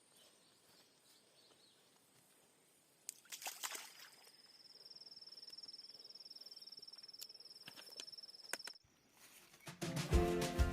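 An insect's high, steady trill, rapidly pulsing, lasting about five seconds over faint outdoor ambience, with a few clicks just before it. Music begins near the end.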